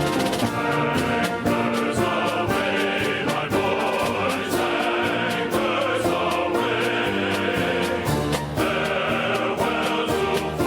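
Choir singing with instrumental accompaniment over a steady, regular beat.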